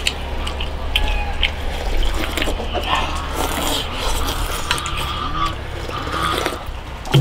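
People slurping noodle soup and drinking broth from stainless steel bowls, with chopsticks clicking against the metal bowls.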